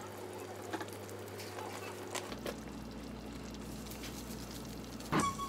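Light kitchen handling over a steady low hum: a few soft clicks and knocks as a spice jar is taken from a cupboard and shaken over a pot of soup. Near the end, music starts.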